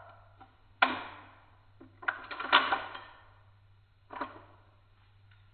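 WE Browning Hi-Power gas blowback airsoft pistol firing on green gas, each shot a sharp crack with the slide clacking back and forward. One loud shot about a second in trails off slowly. A quick run of clacks follows about two seconds in, and another shot comes about four seconds in.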